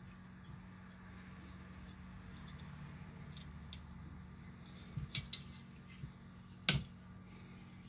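Small clicks and taps of resistor leads being pushed through a circuit board and bent over to hold them in place: a few light clicks about five seconds in, then one sharper, louder click near the end. A steady low hum and faint high chirping run underneath.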